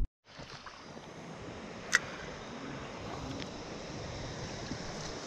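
Steady rush of a flowing creek, with one sharp click about two seconds in.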